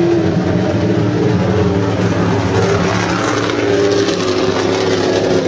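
Dodge Challenger drift car's engine held at high revs while drifting, its pitch wavering up and down a little, over a steady hiss of sliding tyres.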